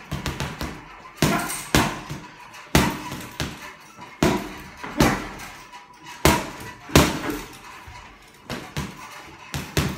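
Boxing gloves punching a hanging heavy bag: sharp thuds, irregularly spaced and often landing in quick combinations of two or three, with short pauses between them.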